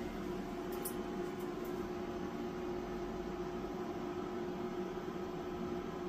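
Solar inverter's cooling fans running steadily at 20% fan speed under a light 300-watt load, a steady whir with a hum. The fans have not shut off at this low load.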